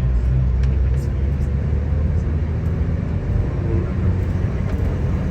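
Minibus engine and road noise heard from inside the cabin: a steady low rumble.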